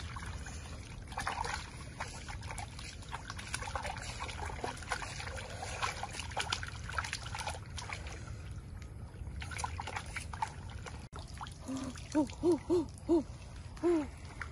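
Hands sloshing and splashing a raw pork leg in shallow pond water to wash it. About twelve seconds in, five short hooting calls come in quick succession, each rising and falling in pitch, louder than the splashing.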